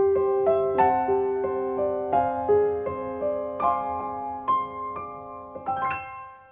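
Soft background piano music: a slow run of single struck notes, ending on a last chord that dies away.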